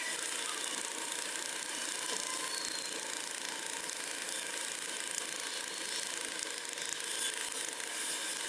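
A handheld electric blower running steadily, an even rushing hiss of air with a faint motor whine.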